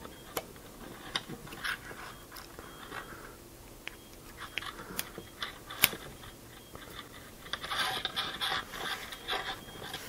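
Blue insulated spade connectors being handled and pushed onto the terminals of a fused power switch module: scattered small plastic clicks and scrapes, one sharper click about six seconds in, and a busier patch of rustling and clicking near the end.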